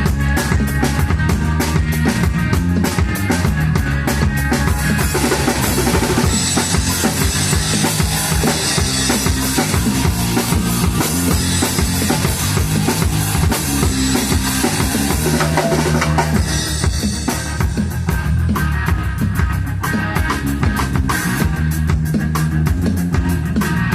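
A rock band of drum kit, electric bass and electric guitar playing live and instrumental, with driving kick, snare and cymbals over a steady bass line. The cymbals wash more heavily through the middle stretch.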